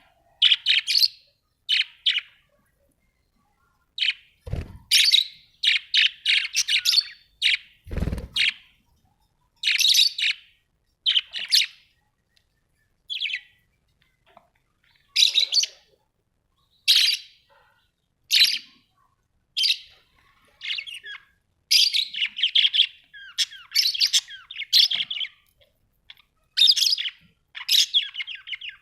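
Budgerigars chirping and chattering in short, fast bursts with pauses between them. Two dull low thumps come about four and eight seconds in.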